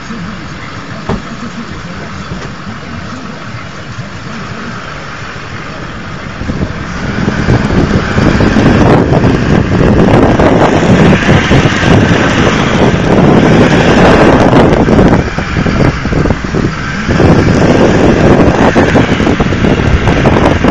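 Vehicle driving across a rough grass field. About a third of the way in, the noise grows much louder and rougher and stays that way.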